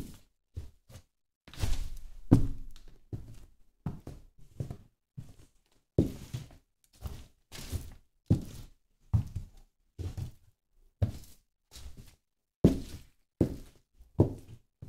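Red high-heeled pumps stepping on a diamond-plate floor and onto French fries and a hamburger, crushing them: a string of separate heel knocks and thuds, about one every half second to second, unevenly spaced.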